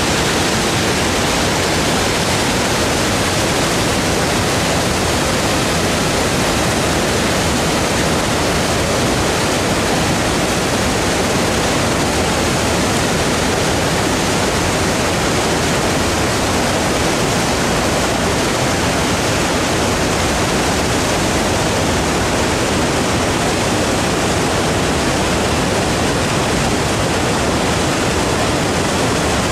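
Steady rushing of a mountain creek's white water cascading over boulders, an even wash of noise that holds unchanged throughout.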